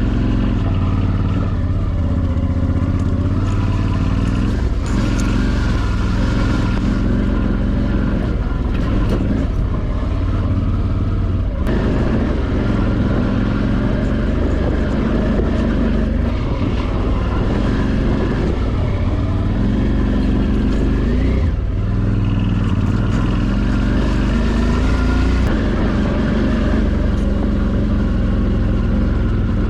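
Suzuki V-Strom DL650's 645 cc V-twin engine running under way on a rough track, its pitch rising and falling with throttle and gear changes, over steady road and wind noise.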